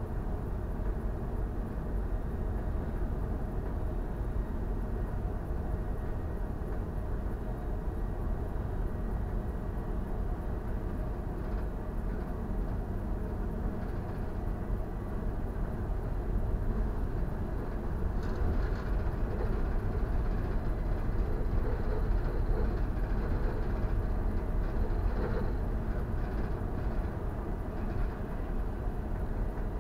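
Steady low rumble and hiss aboard a geared bulk carrier under way, growing slightly louder in the second half, with a few faint short higher-pitched sounds over it.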